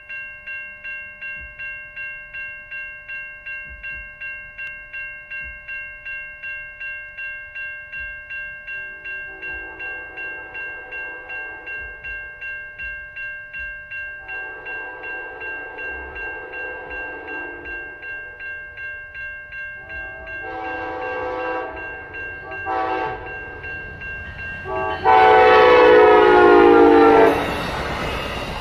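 Electronic grade-crossing warning bell ringing at about two strokes a second while a passenger train's locomotive horn sounds the crossing signal: two long blasts, two shorter ones, then a final long blast, the loudest, as the train reaches the crossing. The rumble of the train passing over the crossing follows near the end.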